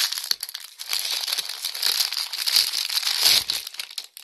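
Plastic toy packaging crinkling and crackling as it is handled and opened by hand.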